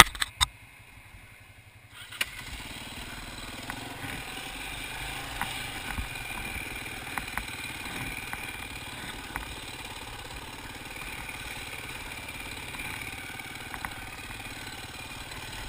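Enduro dirt bike engine running as the bike rides along a rough trail, with scattered sharp knocks and rattles from the bike over the ground. It is quieter for the first two seconds, then gets louder and holds steady from about two seconds in.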